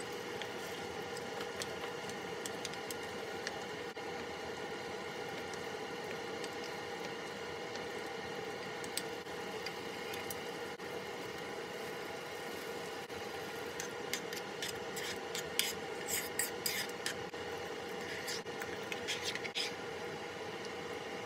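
A spoon stirring thick stew in a pot, with light clicks and scrapes against the pot, most of them in a cluster in the last third, over a steady hum.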